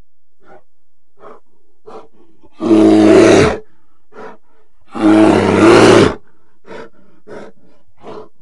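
A bear roaring twice, each roar about a second long, with several short, quieter calls before, between and after.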